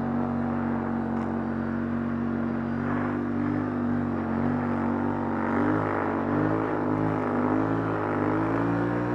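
ATV engine running under way at a steady pitch, then rising and falling in pitch from about halfway through as the throttle is opened and eased.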